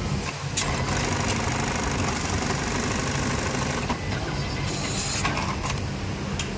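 Industrial sewing machine stitching in a run from about half a second in to about four seconds, then a short burst near five seconds, over a steady low machine hum.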